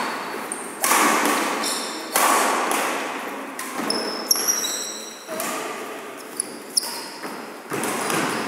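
Badminton rally: the shuttlecock is struck back and forth by rackets about every second and a half, each hit echoing in the hall. Short squeaks of court shoes on the wooden floor come between the shots.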